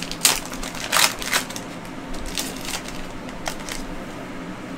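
Trading cards and foil card-pack wrappers being handled on a tabletop: a run of sharp crinkles and clicks, the loudest three within the first second and a half, then fainter ones.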